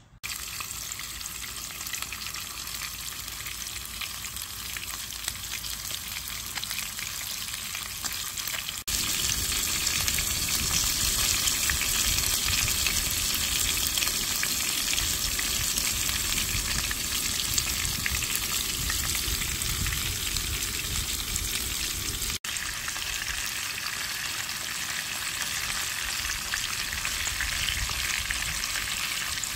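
Thick bone-in beef steak searing in hot oil in a frying pan, giving a steady sizzle that gets louder about nine seconds in.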